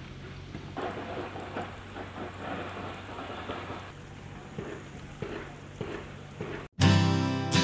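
Steady crackling hiss with scattered small ticks over a low steady hum. Near the end it cuts off abruptly, and strummed acoustic guitar music starts.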